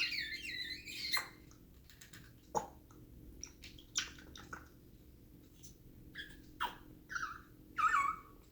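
African grey parrot vocalizing: a wavering chirp at the start, then scattered clicks, and a few short whistled calls near the end.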